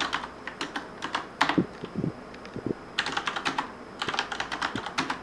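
Penna retro mechanical keyboard with brown switches and chrome keycaps being typed on: quick runs of clacking keystrokes, broken by a pause of about a second and a half in the middle that holds a few deeper thuds.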